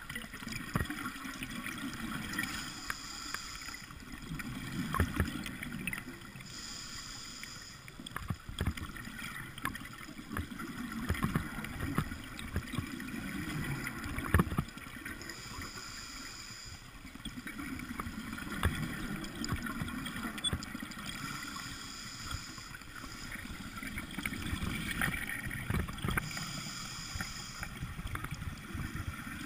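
Underwater sound picked up through a GoPro's waterproof housing while diving: muffled water movement and gurgling with scattered knocks, and a hiss of about a second and a half that comes back five times at uneven intervals.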